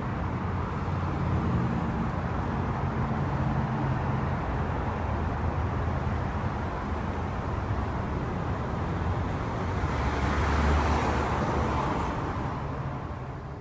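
Street traffic: car engines running and tyre noise, with one vehicle passing louder about ten seconds in.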